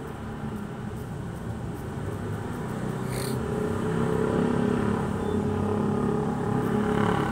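A motor vehicle's engine running with a steady hum that grows steadily louder as it draws near, with a brief hiss about three seconds in.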